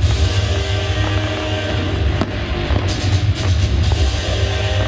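A fireworks show's music soundtrack playing with a strong low end, with several sharp firework bangs cutting through it, the clearest about two seconds in and a cluster soon after.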